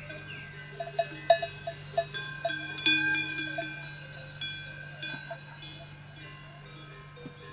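Small metal bells clanking at irregular intervals. Each strike rings on briefly, and the strikes come thickest in the first four seconds, the loudest a little over a second in. A steady low hum runs underneath.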